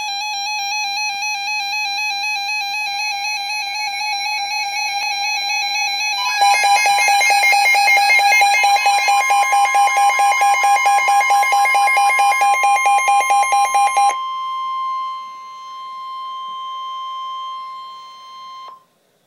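Emergency Alert System attention tones announcing a severe thunderstorm warning. A warbling electronic tone is joined about six seconds in by a fast pulsing beep, then by a steady higher tone. The steady tone carries on alone once the pulsing stops and cuts off shortly before the end.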